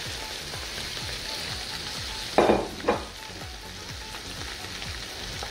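Chopped okra sizzling in hot olive oil in a pot: a steady frying hiss, with two short louder sounds about two and a half seconds in.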